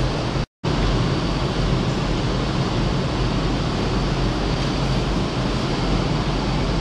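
Steady mechanical running noise with a low rumble and a faint high whine, from a pneumatic form-fill-seal pouch packing machine. It cuts out completely for a moment about half a second in.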